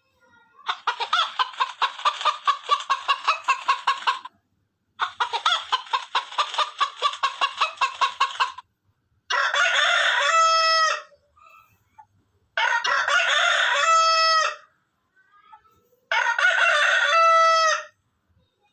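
Chickens clucking in two long runs of rapid, evenly spaced clucks, followed by a rooster crowing three times, each crow ending in a drawn-out, held note.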